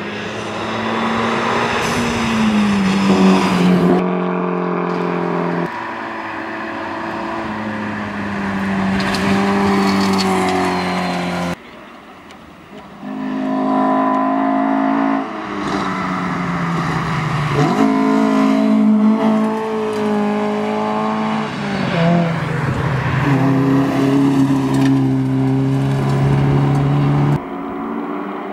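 Rally cars driven hard on a gravel stage: high-revving engines with pitch that dips and steps at gearshifts and lift-offs, one car, then after an abrupt cut a second car approaching and passing.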